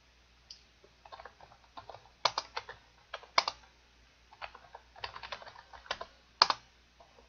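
Typing on a computer keyboard: irregular runs of sharp key clicks with short pauses between them.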